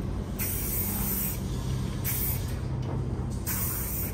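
Aerosol can of red marking paint sprayed in three short hissing bursts, over a steady low hum.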